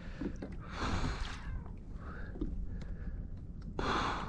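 A man breathing hard while straining against a big hooked fish, with two heavy breaths, one about a second in and one near the end. Wind rumbles steadily on the microphone.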